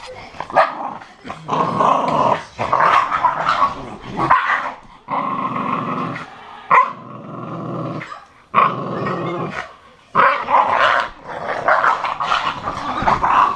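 An American bulldog and a bull terrier play-fighting, growling in long rough stretches with short pauses, and a few short barks in between.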